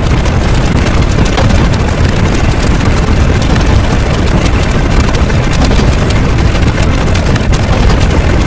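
A loud, continuous low rumble with crackling noise throughout, engine-like but with nothing to say what makes it.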